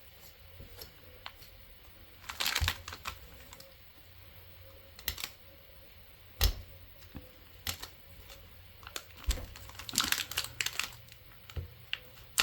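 Scattered light clicks and taps of small tools and clay pieces handled on a desk, with a few louder knocks, among them a sharp one about six and a half seconds in and a quick cluster near the end.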